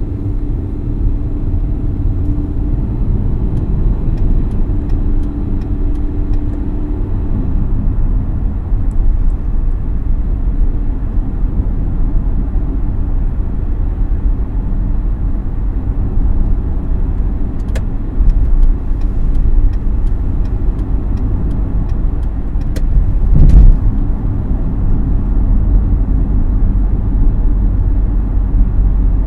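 Steady low rumble of a car driving at speed, heard from inside the cabin: tyre and engine road noise. A few faint clicks, and one louder thump about four-fifths of the way through.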